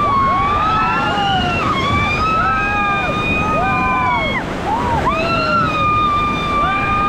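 Rushing river rapids against a raft, with several people whooping and screaming in high, drawn-out cries that rise and fall over one another.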